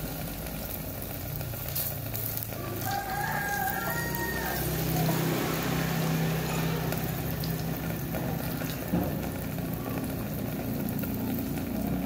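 Banana-cake batter sizzling in a non-stick frying pan, with a low steady hum underneath. A rooster crows once in the background about three seconds in.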